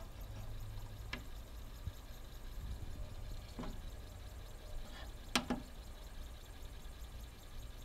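Pioneer PD-4050 CD player running with a faint low whir from the spinning disc. Three sharp clicks of its front-panel buttons come about a second in, midway, and a little past halfway; the last is a louder double click.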